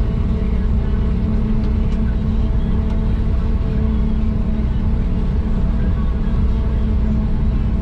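Steady drone of a John Deere 8400i self-propelled forage harvester at work, heard from inside the cab, with a constant low hum.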